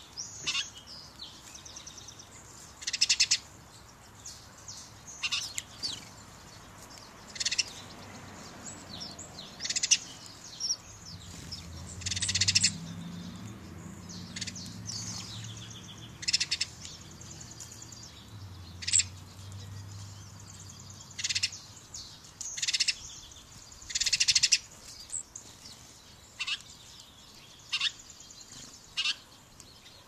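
Small songbirds chirping: short, sharp chirps repeated every second or two, a few of them longer calls. A faint low hum runs underneath through the middle stretch.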